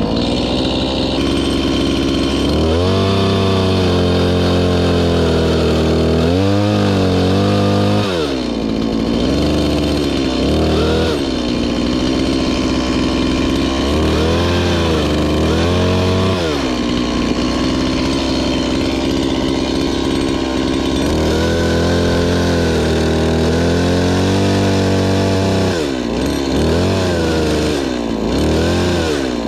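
Two-stroke chainsaw running hard, coming in abruptly at the start. Its engine pitch rises and falls again and again, dropping low several times.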